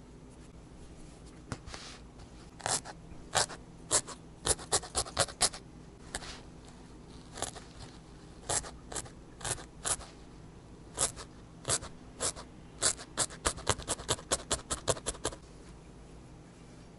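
Felting needle stabbing repeatedly through loose wool into burlap: short, sharp, scratchy pokes in irregular runs, the fastest at about four or five a second.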